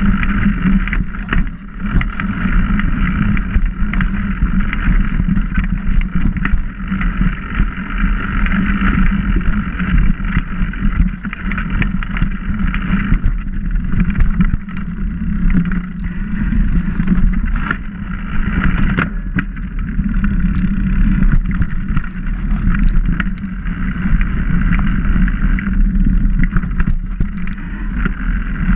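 Mountain bike riding fast over a rough dirt trail, heard through a camera mounted on the bike: a steady rumble and rush of trail vibration and wind, broken by frequent sharp knocks and rattles as the bike hits bumps, roots and sticks.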